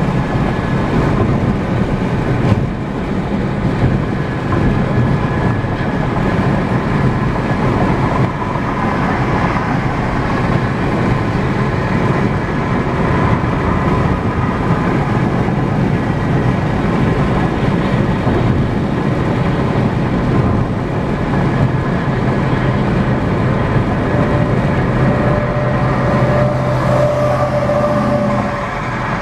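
Steady road noise inside a car cruising at highway speed: even tyre noise on the pavement with a low, steady engine and drivetrain hum.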